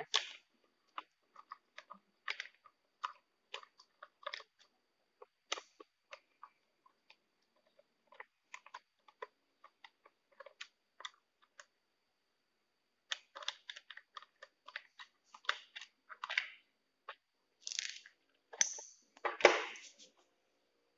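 Small screwdriver unscrewing screws from a plastic Rocia ceiling-fan speed regulator switch: scattered light clicks and scrapes of metal on plastic, coming faster in the second half, with a louder knock about a second before the end.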